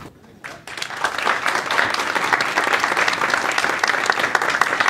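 Audience applauding at the close of a talk. The clapping builds up quickly about half a second in and then holds steady.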